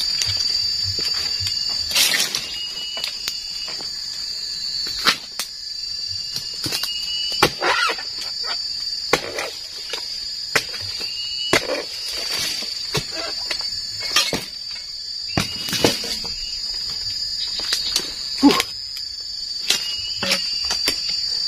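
Dodos chisel-bladed pole pruner being thrust into oil palm frond bases: a sharp chopping strike every second or two, unevenly spaced. A steady high-pitched insect drone runs underneath.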